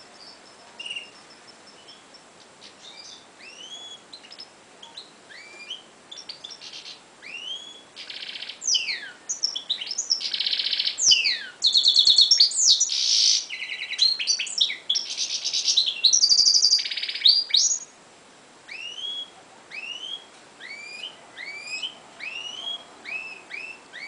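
Caged finches, a European goldfinch and a red canary, singing. Short rising chirps build into loud rapid trills and buzzing song phrases through the middle, then give way to repeated rising call notes again.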